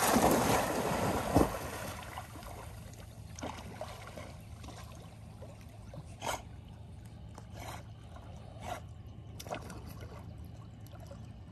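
A Labrador retriever bounding into lake water with a big splash that fades over the first two seconds. Softer water sounds follow, with small splashes every second or so as the dog swims out after the ball.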